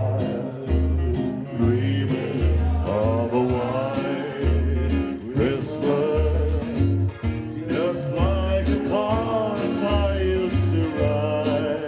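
A small band playing a folk-style song: a singer over strummed guitar and a regular bass line.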